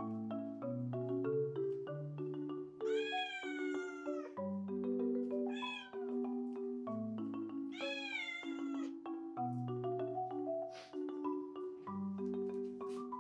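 A Scottish Straight cat meowing: two long, drawn-out meows that rise and then fall in pitch, with a shorter meow between them, over marimba background music.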